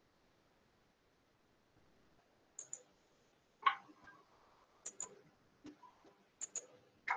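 Computer mouse clicking: several quick pairs of sharp clicks, with a couple of louder, duller knocks in between.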